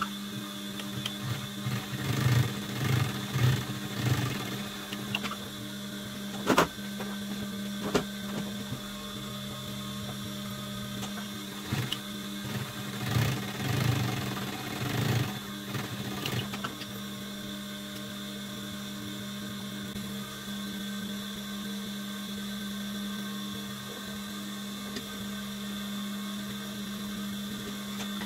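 Protex industrial sewing machine: its motor hums steadily throughout, and twice it runs in short bursts of stitching, about two seconds in and again about twelve seconds in, as leather is sewn onto denim. A sharp click comes in between.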